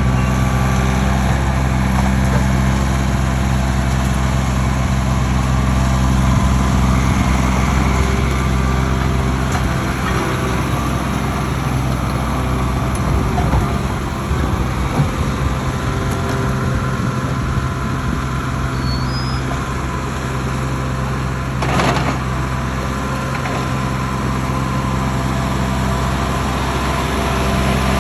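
Engine of heavy stump-removal equipment running steadily, with a rougher, uneven stretch in the middle and a single sharp knock about three-quarters of the way through.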